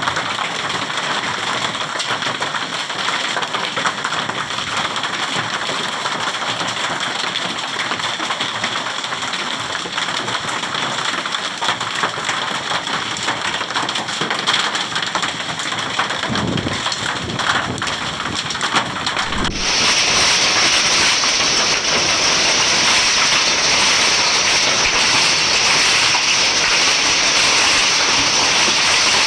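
Heavy hailstorm downpour: a dense, steady hiss of rain and hail falling on open ground. About twenty seconds in it changes abruptly to a louder, brighter hiss of heavy rain.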